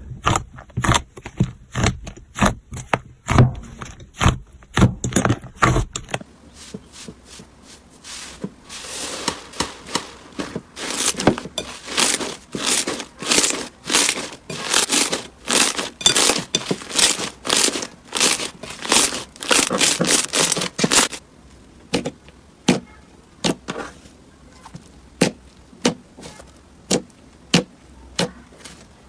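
Slime being pressed and squished by hand, making quick runs of crackling pops and clicks. The sound changes about six seconds in and thins to sparser, separate pops about two-thirds of the way through.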